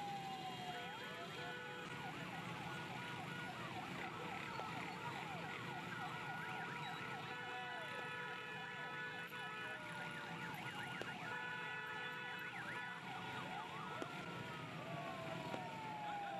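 A convoy siren wails down and up near the start and again near the end, with a run of short rising yelps in between. Held vehicle horns sound over the steady noise of a crowd and motorcycle traffic.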